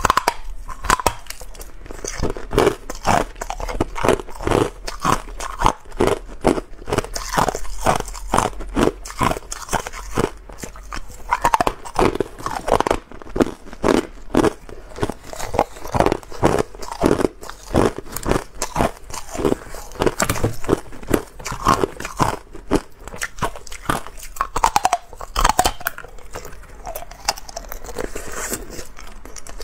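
Hard clear ice cubes bitten and chewed close to a clip-on lapel microphone: a dense, irregular run of sharp cracking crunches with short pauses between bites.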